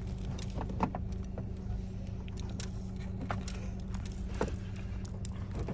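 A steady low hum under scattered light clicks and rattles, the sharpest click a little under a second in.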